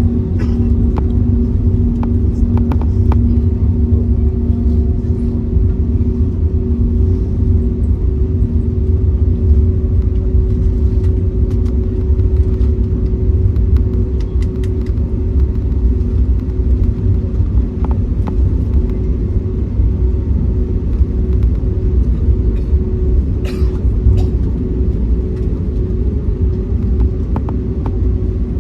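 Steady low rumble inside the cabin of an Airbus A321neo, with a steady hum over it; a second, lower hum fades out after the first few seconds.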